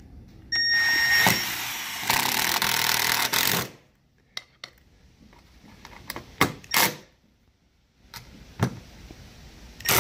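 Milwaukee M12 cordless driver running, driving screws: one long run of about three seconds with a motor whine near the start, then several short bursts of the trigger as the screws are snugged down.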